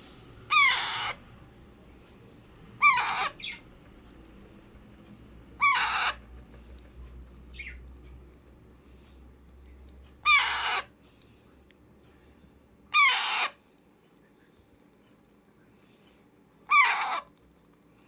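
Young Alexandrine parakeet calling six times, loud calls of about half a second each, spaced a few seconds apart.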